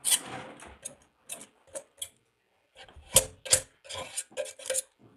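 Utility-knife blade scraping and clicking against a metal tube while spreading silicone, in a string of irregular short scrapes and taps, the loudest a little after three seconds in.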